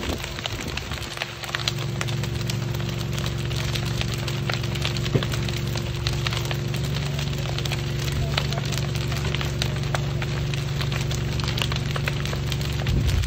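Fire crackling, with many scattered sharp pops, over the steady drone of an engine running.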